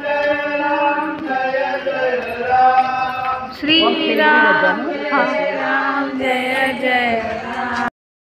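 Hindu devotional singing, chant-like, with long held notes and wavering pitch; the sound cuts out suddenly for about half a second near the end.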